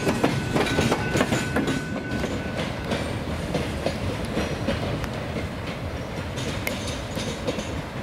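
Wheels of passenger cars clicking over rail joints as the train rolls away, fading. A brief thin squeal sounds about a second in.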